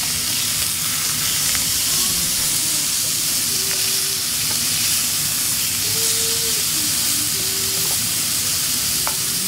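Marinated meat fillets frying in a hot stone-coated grill pan, a steady sizzle as they are turned over with tongs.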